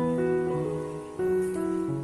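Background music: soft instrumental with sustained notes that change in steps, one chord giving way to the next about every half second.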